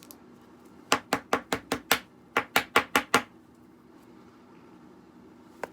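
Two quick runs of sharp taps, about six and then five, at roughly five a second, with a short pause between: something hard being tapped repeatedly on a surface.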